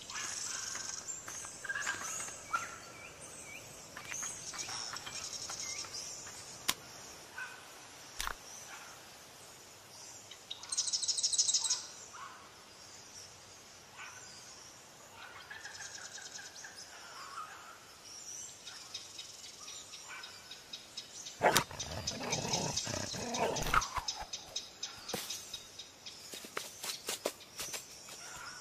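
Outdoor nature ambience: birds chirping over a steady high hiss, with a rapid trill about eleven seconds in. About three quarters of the way through, a thump starts a couple of seconds of louder rustling and clattering.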